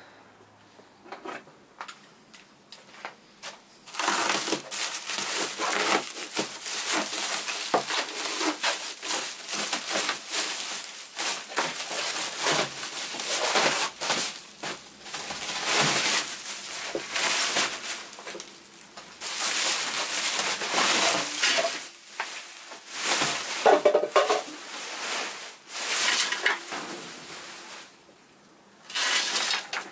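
Plastic stretch wrap being torn and pulled off by hand, crackling and rustling in long waves from about four seconds in, with a short lull near the end.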